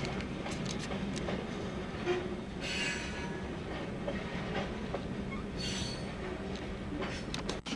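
Freight train of covered hopper grain cars rolling past: a steady rumble with wheel clicks over the rail joints, and two short high-pitched metallic squeals, about three seconds in and again near six seconds. Heard from inside a car.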